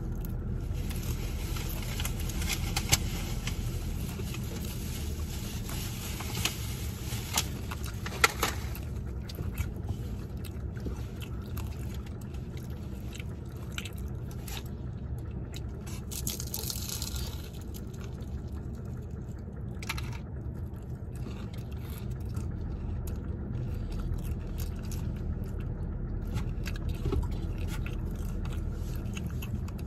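Close-up chewing and crunching on a fried spring roll, with scattered clicks and rustles from a plastic takeout container, over a steady low rumble from the car.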